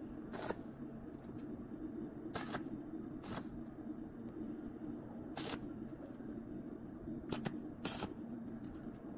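Stick welder striking the arc in six short, sharp bursts while tack-welding a galvanized square-tube frame, with a steady low hum underneath throughout.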